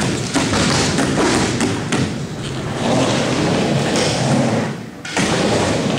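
Skateboard wheels rolling across an indoor skatepark bowl, a steady rolling noise with a few thuds from the board. The noise dips briefly near the end, then comes back.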